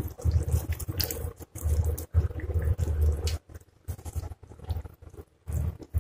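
Egg curry simmering in a pot, bubbling with small pops and clicks, over a low rumble that comes and goes in stretches, dropping away in the middle.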